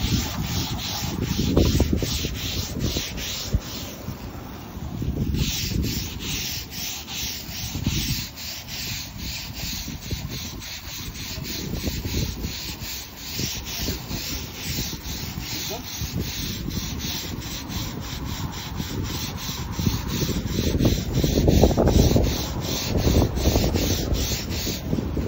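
Stiff-bristled deck brush on a pole scrubbed hard back and forth across wet Dekorator Voyage composite deck boards, a rhythmic scraping of about three strokes a second with a brief pause about four seconds in. This is heavy-duty scrubbing to work cleaner into the boards' grain.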